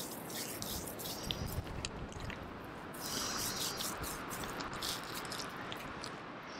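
A hand rubbing balm into the coarse hair of a draught horse's lower leg: close crackling and rustling with many small crisp clicks, and a longer, louder rustle about three seconds in.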